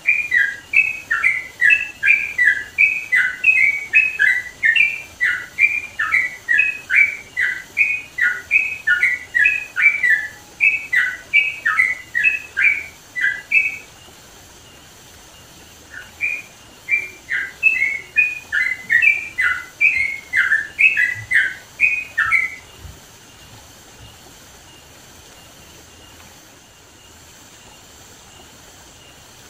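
Yellow-vented bulbul (trucukan) singing loudly in a fast run of repeated bubbly chirps, several a second. It breaks off about halfway, sings again for several seconds, then stops, leaving a faint steady hiss.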